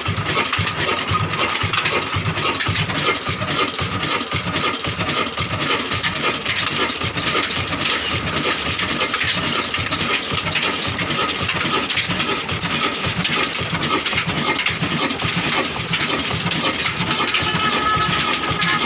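Old 18 hp Ruston diesel engine running steadily, with an even low beat from its firing strokes and a faint steady high tone over it.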